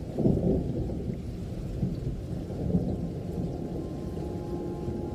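Thunder rumbling during a rainstorm, a deep roll that swells just after the start and rises again twice, over a steady wash of rain.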